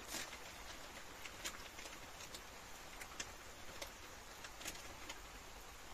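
Light rain: a faint steady hiss with irregular sharp ticks of drops landing close by, about one every half second to second.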